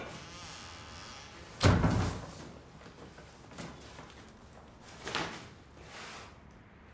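A single loud slam, a heavy thud that rings on briefly, about a second and a half in, with a softer knock later and faint rustling around it.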